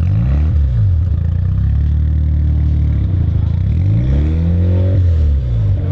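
Modified sports car engine idling, revved twice: a quick blip just after the start, then a longer rev about four seconds in, climbing and dropping back to idle.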